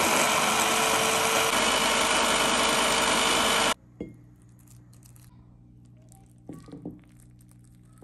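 Electric hand-blender chopper running at full speed, puréeing fried liver, onion and carrot into pâté; it cuts off abruptly a little under four seconds in. After that come only faint, soft scrapes of a silicone spatula spreading the pâté in a ceramic dish.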